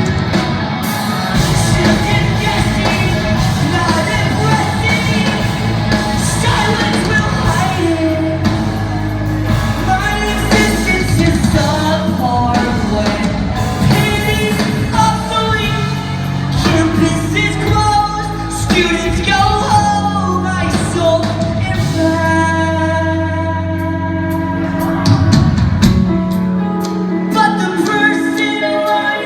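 Post-hardcore band playing live, with a singer over the band. About 26 seconds in, the deep bass drops out and the music thins to held notes.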